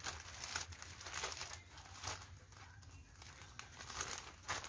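Plastic courier mailer and clear plastic inner bag crinkling and rustling in the hands as a parcel is opened, in irregular bursts that ease off about halfway and pick up again near the end.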